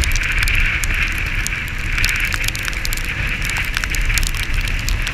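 Steady wind and road noise of a scooter ride picked up by a helmet-mounted microphone, with low rumble and many sharp crackles running through it.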